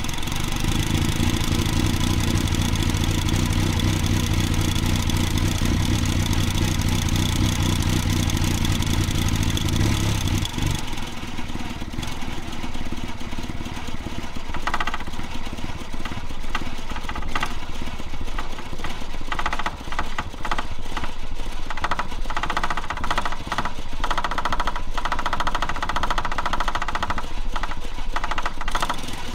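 The four-cylinder engine of a 1991 Fiat Panda 4x4, flooded with petrol, turning over on the starter but not starting cleanly. A deep, heavy sound for about the first ten seconds gives way to a lighter, rapid chatter.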